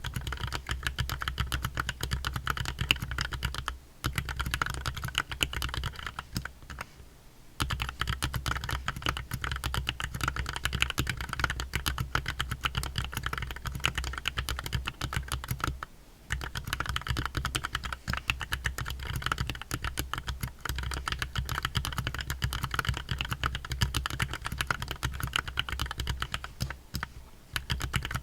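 Steady fast typing on a Drop + Tokyo60 mechanical keyboard with Gateron Milky Yellow linear switches, keys clacking continuously with a few short pauses.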